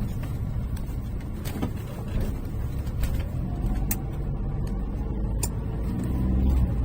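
Car engine and road noise heard from inside a moving car: a steady low rumble that grows a little louder about six seconds in, with a few faint clicks.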